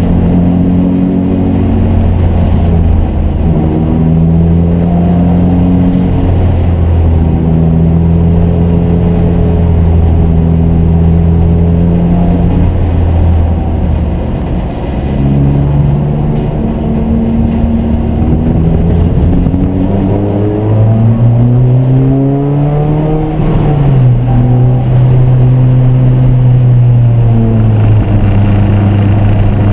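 Race car engine running loud and continuously under racing load, its pitch held level for stretches and changing in steps with the throttle and gears. About two-thirds of the way through it climbs in one long rise, then drops off sharply.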